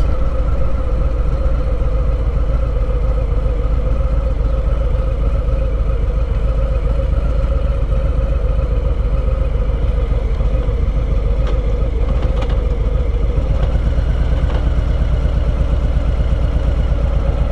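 A 2019 Harley-Davidson Low Rider's V-twin engine running steadily at low revs while the motorcycle rolls slowly.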